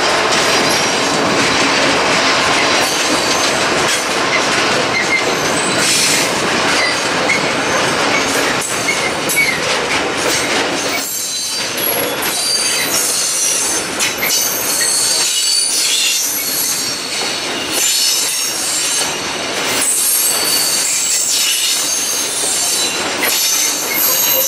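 A long train of loaded covered hopper freight wagons rolling past, wheels squealing in high, wavering screeches, with steady rumble and clicks over the rail joints.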